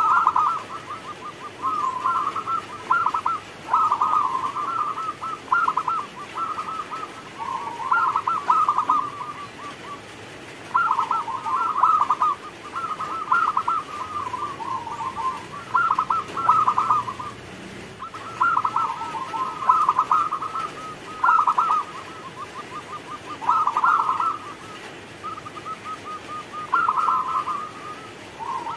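Zebra dove (perkutut) cooing: about a dozen quick, stuttering phrases of rapid notes, each a second or two long, with short pauses between.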